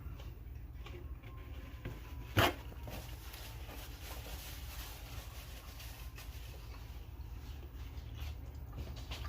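A person chewing a bite of grilled pork, with small mouth clicks over a steady low hum and one sharp click about two and a half seconds in.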